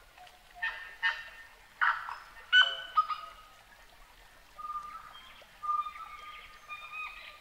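Forest birds calling: a run of loud, harsh calls in the first three seconds, then clear, steady whistled notes.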